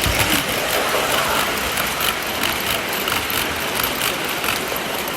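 Model train running on a layout, a steady rolling rumble with many irregular clicks from the wheels on the track, over the general noise of a busy exhibition hall.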